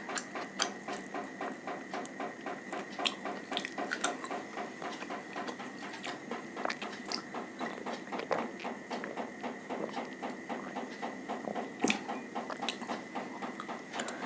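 Close-miked eating: steady chewing with wet mouth clicks and smacks, several a second, and a few sharper crunches or bites.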